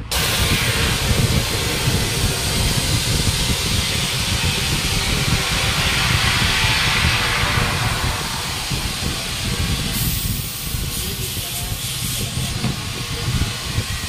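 Compressed air hissing steadily through an air hose into a large JCB tyre's inner tube as it is inflated, starting suddenly, with a low rumble underneath.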